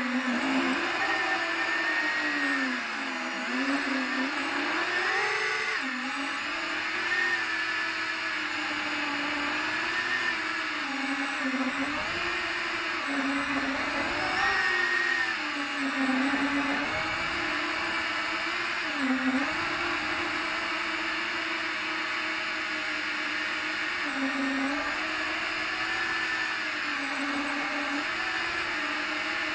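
FPV quadcopter's brushless motors and propellers whining, recorded by the onboard camera, the pitch rising and falling again and again as the throttle changes.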